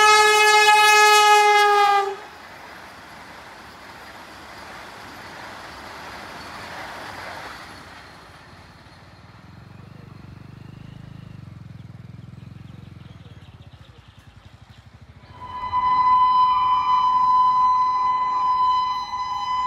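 A Vande Bharat Express train horn sounds one long, loud blast that dips slightly in pitch near its end and cuts off about two seconds in. The rush of the train follows, swelling and then fading to a low rumble. About fifteen seconds in, a loud steady sound of several held pitches starts.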